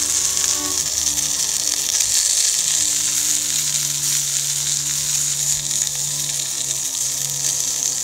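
Sausages sizzling in their fat on a hot iron griddle plate: a steady high hiss. Soft background music with held chords plays underneath.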